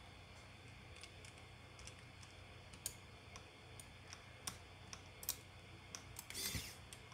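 Faint, irregular clicks and taps of a pry tool and fingers on the small plastic and metal parts inside an opened Nintendo Switch, with a short scrape near the end.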